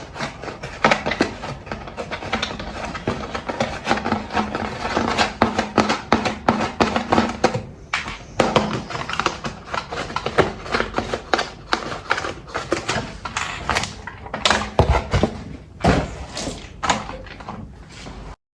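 Dense, irregular tapping, clicking and crackling of objects being handled, cutting off suddenly near the end.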